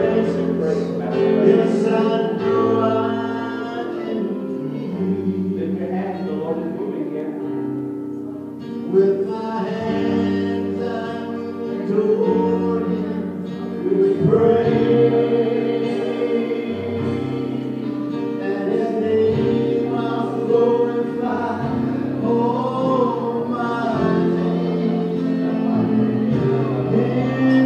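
Live gospel worship music: voices singing long, held notes over instrumental accompaniment.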